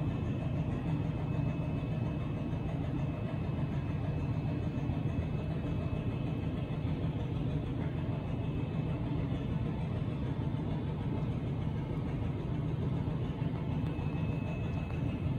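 Steady low hum and rumble of an AC electric locomotive's running equipment heard inside its cab, with a faint high whine over it.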